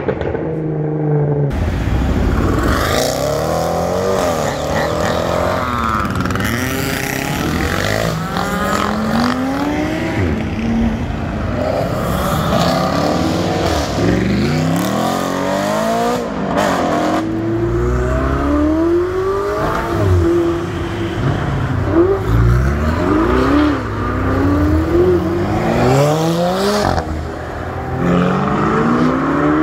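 Supercar engines revving and accelerating hard, the engine note climbing and then dropping back again and again.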